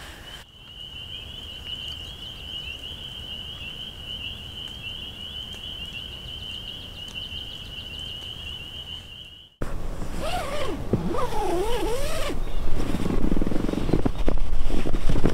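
A steady, high-pitched night chorus trills without a break for about nine seconds and then cuts off suddenly. It is followed by louder rustling and a drawn-out wavering call or groan.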